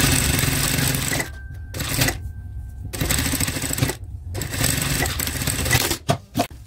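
Industrial lockstitch sewing machine stitching in stop-start runs of about a second each, with short pauses between runs and two quick bursts near the end.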